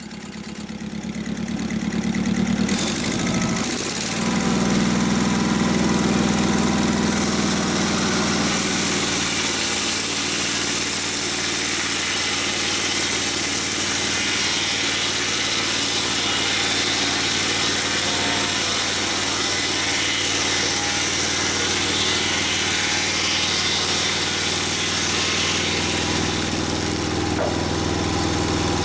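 Mobile Dimension sawmill's engine running. It comes up in speed over the first few seconds, then holds a steady run.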